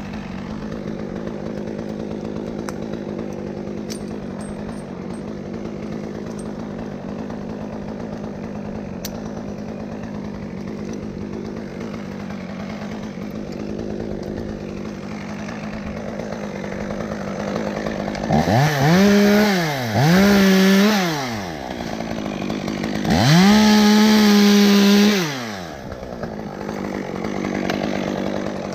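Two-stroke chainsaw idling steadily, then revved to high speed three times in the last third, each rev held for a second or two before dropping back to idle.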